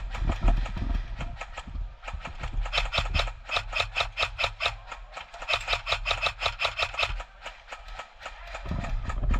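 Airsoft guns firing in rapid bursts of sharp clicks, about eight shots a second, with the heaviest strings a few seconds in and again past the middle.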